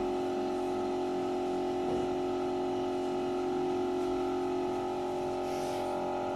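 A steady hum made of several held tones that do not change, with a faint knock about two seconds in.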